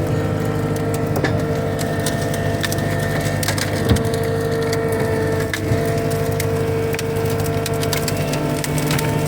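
Cat 259D skid steer's diesel engine running steadily while its grapple bucket crushes and snaps brush, with many sharp cracks of splintering wood and a heavier knock about four seconds in.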